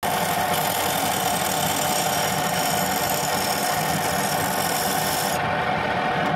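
Turning chisel cutting into the rim of a spinning wooden mug on a homemade wood lathe: a steady, loud scraping hiss over the running lathe. About five seconds in the cutting stops, leaving the lathe running.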